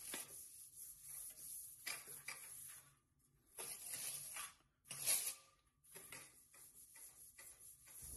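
Fluffy duster brushing over venetian blind slats: a run of soft swishing, rustling strokes broken by short pauses, the loudest a little past halfway.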